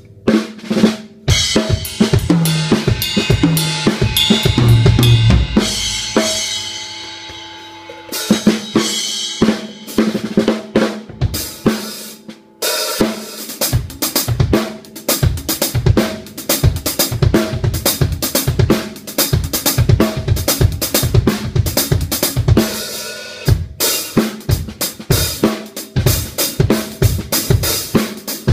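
Acoustic drum kit played solo at a sound check: tom fills and cymbal crashes first, a cymbal ringing out, then, after a short break about halfway in, a steady groove of kick drum, snare and hi-hat.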